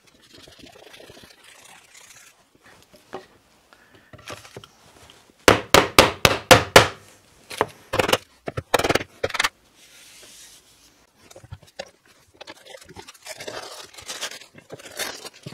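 Quick runs of sharp knocks on a melamine-faced board laid over a freshly glued-up wooden panel: about eight in a second and a half, then a few more a couple of seconds later. Softer rubbing and scraping of wood and paper before and after.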